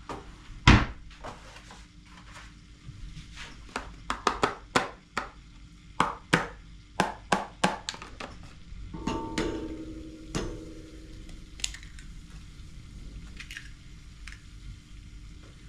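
Kitchen utensils knocking and tapping against bowls: a loud knock just under a second in, then a quick irregular run of taps. A short ringing tone comes about nine seconds in.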